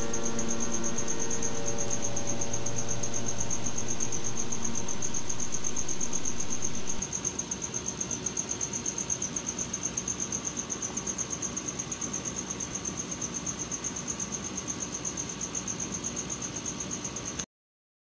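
Piano music, the closing notes of a passacaglia, rings out and dies away over the first few seconds. A steady hiss with a high, fast-pulsing whine is left; it drops in level about seven seconds in and cuts off abruptly shortly before the end.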